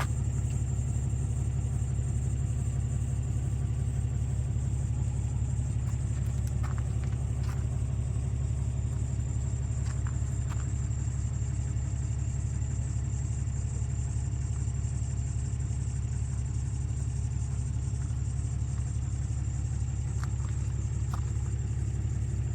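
Engine of a Bandit 200UC towable wood chipper running at a steady speed, with a steady low drone and no change in load, and a few faint clicks over it.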